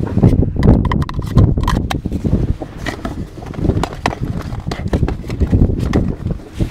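Plastic tackle box of jig heads and soft lures being rummaged through by hand, with irregular clicks and rattles, over gusty wind buffeting the microphone.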